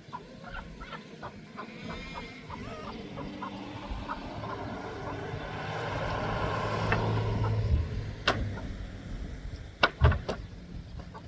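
A motor vehicle's engine passing by, growing louder over several seconds and then fading away, with a few sharp knocks near the end.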